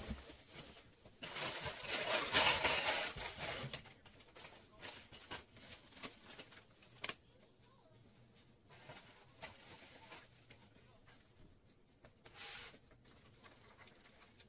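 Paper and packaging rustling as it is handled, loudest for a couple of seconds just after the start, then scattered light clicks and rustles, with another short rustle near the end.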